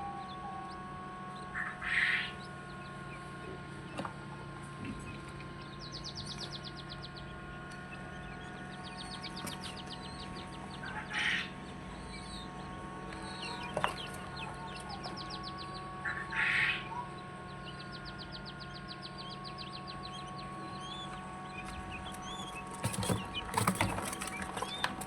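King quail chicks peeping in an incubator over a steady hum, with rapid high trills and louder calls about two, eleven and sixteen seconds in. A cluster of sharp knocks comes near the end.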